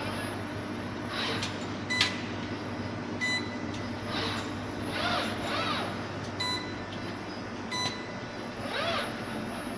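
Steel plank production line running: a steady machine hum, with four sharp metallic clanks that ring briefly and several short hissing swells between them.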